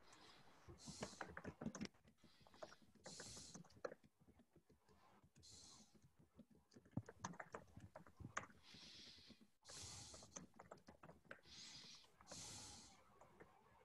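Faint scattered clicking and tapping of a computer mouse and keyboard, with short soft hisses every couple of seconds.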